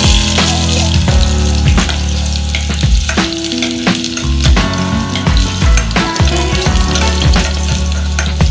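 Chopped garlic sizzling in hot oil in a frying pan, a steady crackling hiss, with background music playing underneath.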